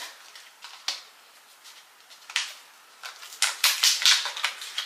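Small metal furniture screws clicking and clinking as they are picked out of a hardware pack by hand: a few scattered clicks, then a quick run of them a little past halfway.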